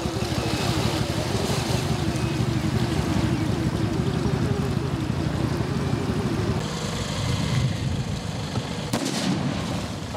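A small engine running steadily over a rushing noise, its pitched note dropping away about six and a half seconds in.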